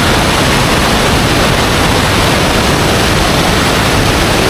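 Loud, steady rush of water from a cascading waterfall close by.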